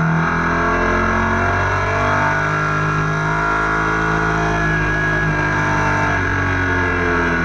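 Motorcycle engine running steadily at road speed, picked up by an onboard camera, with small shifts in pitch.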